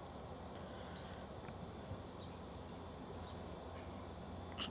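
Faint outdoor evening ambience of insects chirping steadily, over a low background hum, with a small click near the end.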